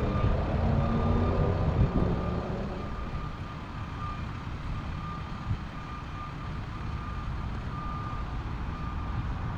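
A vehicle's reversing alarm beeping at one steady pitch, repeating evenly, over a low engine-like rumble that is louder for the first two seconds.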